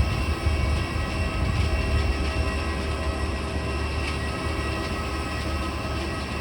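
Airbus A320 jet engines running steadily: a low rumble with several steady whining tones above it.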